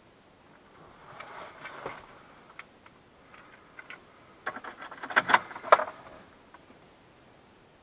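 A scatter of light clicks and a brief clattering rattle about five seconds in, after a soft rustle near the start.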